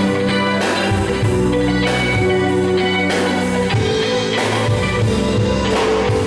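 Live band playing rock music: guitars over a drum kit, with steady drum and cymbal hits under held guitar notes.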